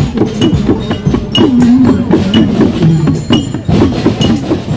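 Traditional Sundanese procession music from a group of marchers: hand drums and bamboo percussion clack and beat in a steady rhythm, with a wavering melody line over them. A short high ring comes back about once a second.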